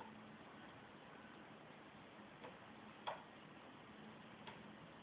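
Near silence with a faint hiss, broken by a few short, sharp, irregularly spaced clicks, the clearest one about three seconds in.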